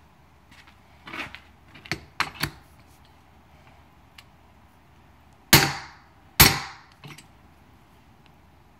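Two hard hammer blows on a steel seal driver, about a second apart, driving a new wheel seal further down into a truck hub so that it sits level all round. A few lighter metal clinks come first as the driver is set on the seal.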